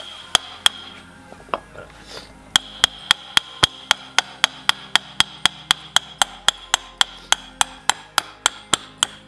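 Ball-peen hammer striking a steel wheel stud to drive it out of a rear wheel hub assembly. A few scattered blows come first, then a steady run of about three to four ringing metal strikes a second, until the stud comes out.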